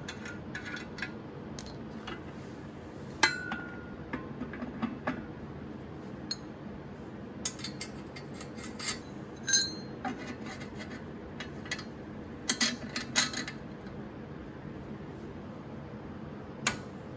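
Steel suspension parts being handled and fitted: scattered clinks and knocks of metal on metal as a lower control arm is set against its ball joint and clamped with locking pliers, some of them ringing briefly. The sharpest clink comes about three seconds in, with a quick run of knocks around twelve to thirteen seconds and one more near the end.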